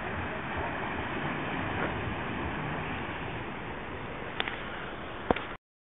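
Steady wash of sea surf on a rocky shore, heard through a phone-camera microphone, with two sharp clicks near the end before the sound cuts off abruptly.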